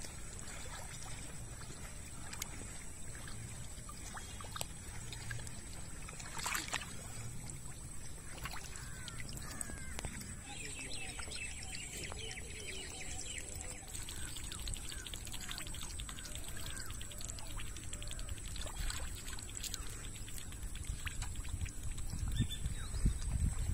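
Hands splashing and sloshing through shallow, muddy river water while groping for fish, with birds chirping in the background. A low rumble grows near the end.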